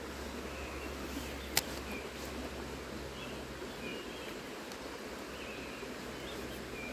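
Shallow stream running over stones, a steady rush, with short high chirps now and then and a single sharp click about a second and a half in.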